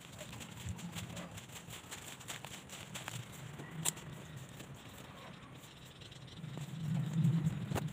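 Footsteps and rustling through grass and dry leaf litter, with scattered clicks of a phone being handled. A low rumble swells near the end.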